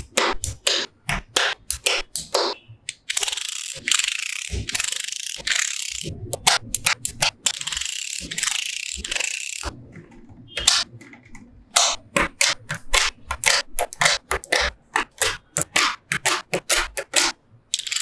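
Magnetic balls clicking and snapping into place in quick runs of sharp clicks. Between the runs come stretches of rattling scraping as rows of balls are slid and pressed along with a clear plastic strip.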